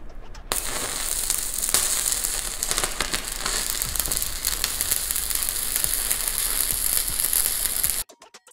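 Stick (SMAW) welding arc crackling steadily while an overhead cap pass is run on a steel test plate. It starts about half a second in and cuts off abruptly near the end.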